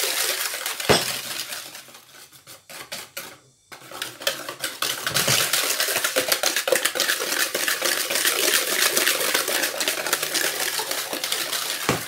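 Wire whisk beating eggs and sugar in a plastic bowl, a rapid run of clicking and scraping strokes of the wires against the bowl as the mixture is whipped frothy. There is a sharp knock about a second in. The beating dies down briefly about two seconds in, then picks up again and goes on steadily.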